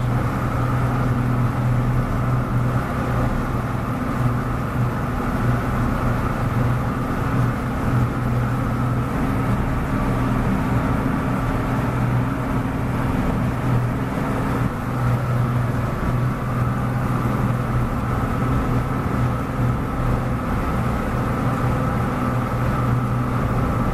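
Boat's engine running at a steady low drone while the boat motors along, with a constant rush of wind and water over the hull.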